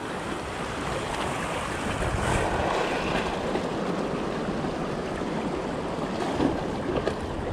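Steady noise of sea surf washing along a rocky shore, mixed with wind buffeting the microphone.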